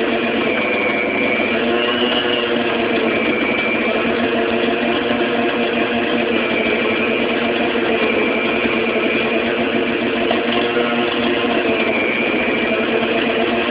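Electric stand mixer running steadily, its beater churning flour and dough in a stainless steel bowl; the motor's hum wavers slightly in pitch.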